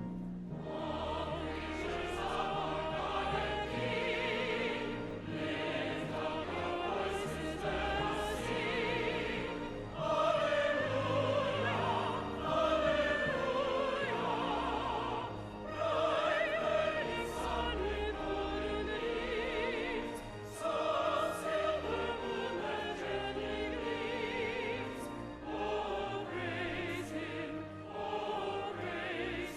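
Classical choral music with orchestra: sustained sung voices with strong vibrato over instrumental accompaniment.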